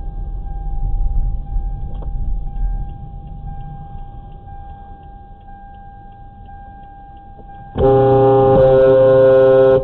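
Low road and engine rumble from a moving vehicle, then, about eight seconds in, a loud, low-pitched vehicle horn blares steadily for about two seconds.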